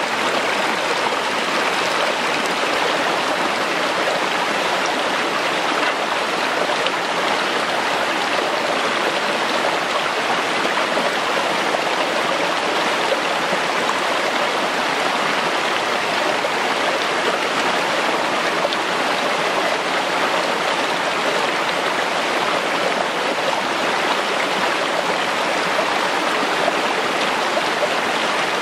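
Rocky forest stream running steadily over stones: a continuous, even rush of water.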